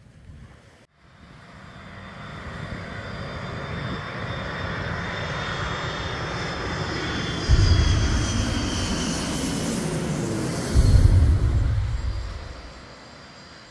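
KLM jet airliner on final approach, passing low overhead. Its engine noise builds over several seconds to a loud rush with a falling whine, with two sudden bursts of low rumble near the peak, then fades.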